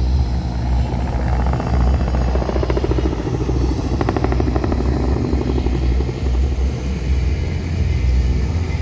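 Helicopter flying past: a steady low rumble, with the rapid beating of its rotor blades coming through strongest about three to five seconds in.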